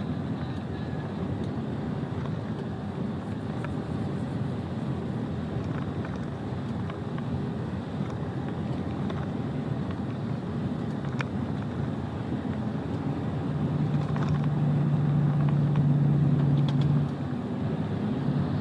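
Truck driving: steady engine and road rumble. About three-quarters of the way through, a louder low steady hum comes in for a few seconds and then stops abruptly.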